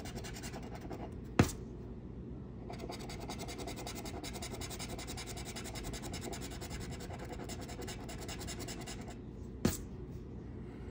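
Metal scratching tool rapidly scraping the latex coating off a scratch-off lottery ticket lying on a hard table, in fast repeated strokes. There are two sharp taps, one about a second and a half in and one near the end, just after the scraping stops.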